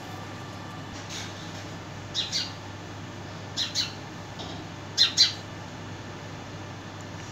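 House sparrow chirping: a faint chirp about a second in, then three quick pairs of chirps about a second and a half apart, the last pair the loudest, over a steady low hum.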